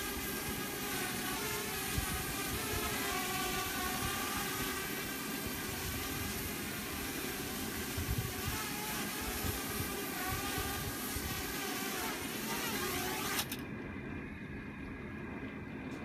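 Parrot Bebop quadcopter's four propeller motors whining as it hovers, the pitch wavering as it holds position, with wind gusting over the microphone. About thirteen seconds in, the motors stop suddenly as it lands, leaving only the wind rumble.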